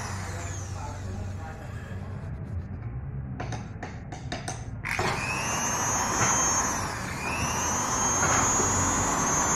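Usha high-speed sewing machine motor, a brushed 8500 rpm universal motor, running with a high mixer-like whine. It winds down at the start, a few clicks come around four seconds in, then it speeds back up about five seconds in, dips briefly, and runs on at a steady high whine.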